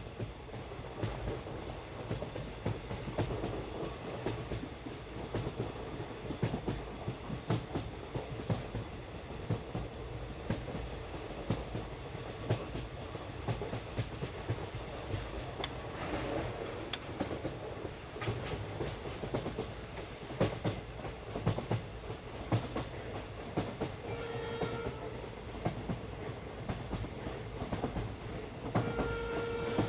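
Park toy train running along its track, its wheels clacking over the rail joints with a steady rumble. A flat horn tone sounds briefly about three-quarters of the way through and again just before the end.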